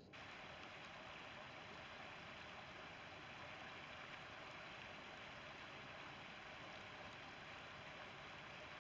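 Faint, steady rushing of shallow river water flowing over stones.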